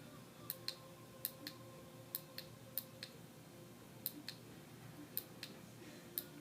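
Faint sharp clicks, mostly in pairs about a fifth of a second apart and coming roughly once a second, irregularly: the buttons of a handheld wireless remote for an LED light kit being pressed and released.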